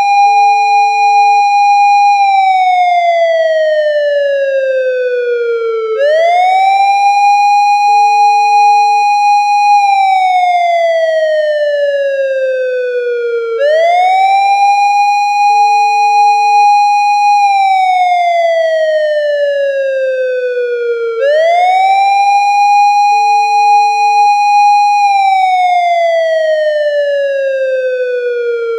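Japanese police car siren wailing in repeated cycles. Each cycle jumps up quickly to a high steady note, holds it for about two seconds, then slides slowly down over about four seconds before rising again, about every seven and a half seconds.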